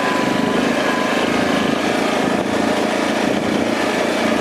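Four-wheeler (ATV) running steadily while being ridden at speed, a continuous engine drone with a rushing noise over it.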